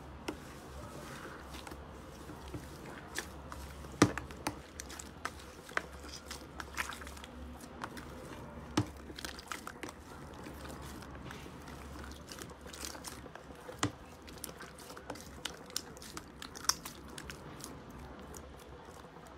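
Hands kneading and squeezing thick purple slime mixed with chunks of fluffy light-blue slime, giving irregular sticky crackles and small pops as air pockets burst; the sharpest pop comes about four seconds in.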